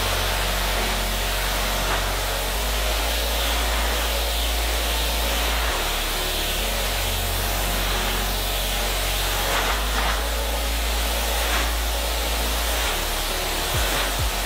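Pressure washer wand spraying a steady hissing jet of water onto a car's windshield and roof, rinsing off caked dust.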